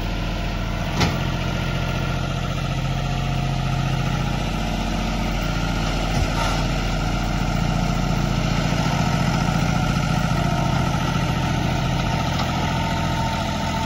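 Diesel tractor engine running steadily, with a brief click about a second in and another about six seconds in.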